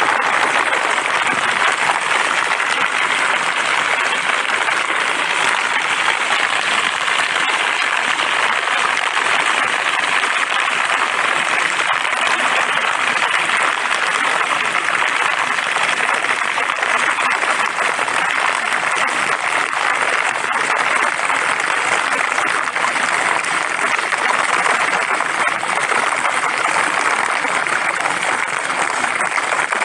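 Steady rushing and gurgling of muddy floodwater pouring down an uncovered garden drain as a rain puddle empties through it.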